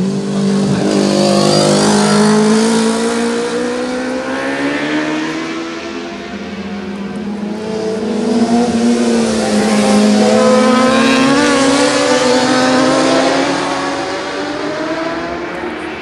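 Racing motorcycles passing at full speed on a road course, their engines revving high. A lone bike sweeps past in the first few seconds, then a small group of bikes passes together about halfway through, the engine notes rising as they come and falling away as they go.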